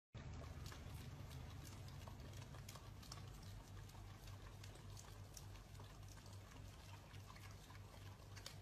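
Faint wet licking and smacking from two huskies, an adult and a puppy, licking an ice cream cone: many small irregular clicks over a low hum.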